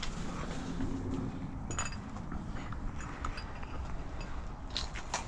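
Footsteps over rubble and broken tile fragments, with a few sharp clinks of debris underfoot about two seconds in and near the end.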